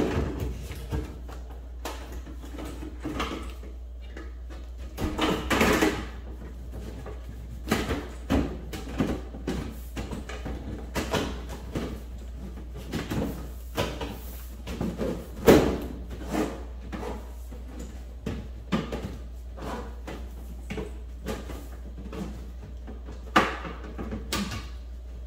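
Sheet-metal stainless chimney cover of a Cosmo wall-mount range hood being slid and fitted by hand: irregular knocks, clatters and scraping of the thin metal sections, over a steady low hum. The sharpest knocks come about a second in, a few around the middle, and one near the end.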